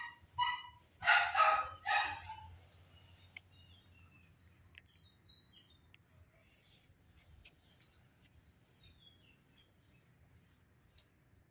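Kitten meowing: about four short meows in the first two and a half seconds, then only faint, scattered bird chirps.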